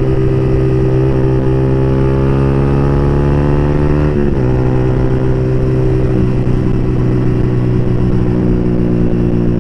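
Yamaha R15 v3's single-cylinder engine breathing through an open exhaust pipe, pulling under load with its pitch climbing steadily. The pitch drops sharply at an upshift about four seconds in, then climbs again.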